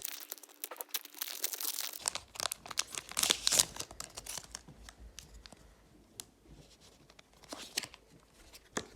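Foil wrapper of a Pokémon TCG booster pack being crinkled and torn open, with crackling that is thickest in the first few seconds and then thins to scattered crinkles and clicks as the pack is handled.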